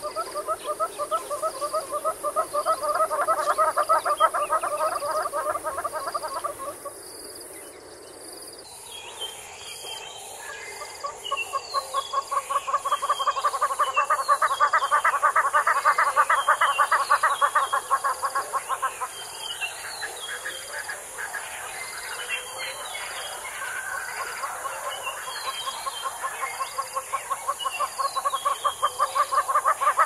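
Damara red-billed hornbill calling: long runs of rapid clucking notes that swell in loudness, in three bouts separated by pauses of a few seconds. From about eight seconds in, another bird's repeated high chirps and a steady high hiss are heard behind it.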